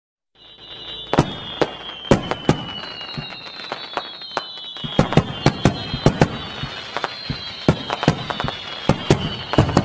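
Fireworks going off: an irregular run of sharp bangs and crackles, with a high whistling tone drifting slowly down in pitch above them.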